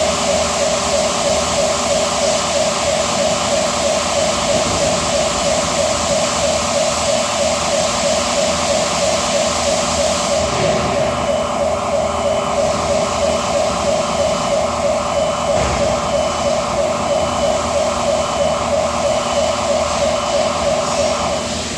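Loud die-casting factory machinery noise: a steady hiss with a fast-pulsing mechanical tone running through it. From about halfway on, a faint short beep repeats about once every second and a quarter. Near the very end the noise dips briefly.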